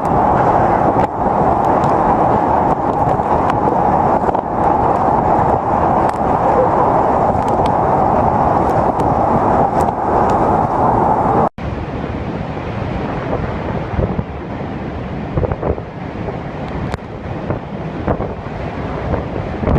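Strong typhoon wind gusting against the microphone as a loud, steady rush of noise. A little over halfway through it cuts abruptly to another, somewhat quieter recording of the wind.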